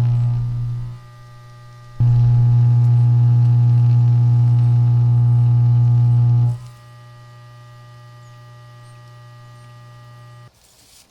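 Steady electrical hum of an AC arc welder feeding a carbon arc, with a strong low buzz and many overtones. It fades about a second in, comes back loud and sudden at about two seconds as the arc burns again, drops to a quieter idle hum after about four and a half seconds, then cuts off near the end.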